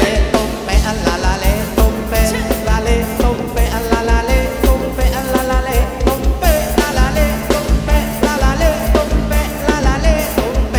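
Band playing upbeat Thai ramwong dance music, with a melody over a quick, steady drum beat.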